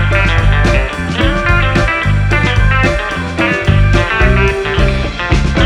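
Background music: a guitar-led track with a bass line and a steady beat.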